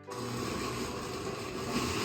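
A blender switches on suddenly and runs steadily, churning rehydrated dried chilies, onion, garlic and chili soaking liquid into a chorizo seasoning paste.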